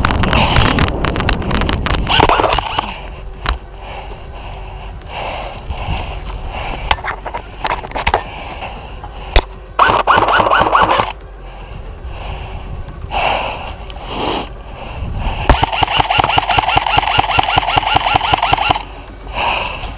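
Airsoft electric rifle firing on full auto: a short burst about ten seconds in and a longer burst of about three seconds near the end, a fast, even rattle of shots. Scattered single sharp clicks come in between.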